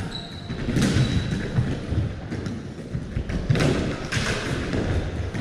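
Irregular thumps and knocks of hockey sticks, a ball and running feet on a gym floor during a stick-and-ball game, with the hollow ring of a large sports hall.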